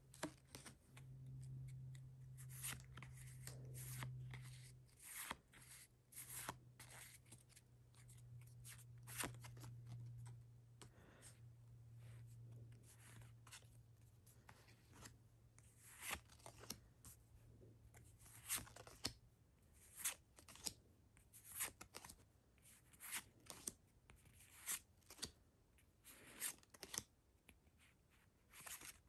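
Pokémon trading cards being handled and flipped through one at a time: soft card slides and light taps, faint, every second or so. A faint low hum sits underneath and fades out about two-thirds of the way through.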